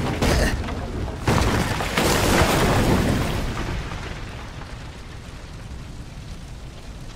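Fire raging through a wooden building. Heavy rumbling crashes come in the first three seconds or so, then die down to a steadier fire noise.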